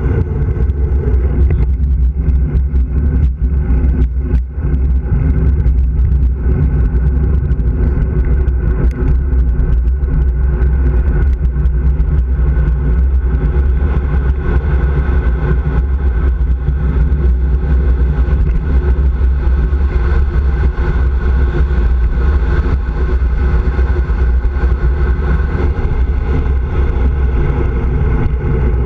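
Steady, loud rush of wind over the microphone of a handlebar-mounted camera, with tyre noise on asphalt from a bicycle descending fast.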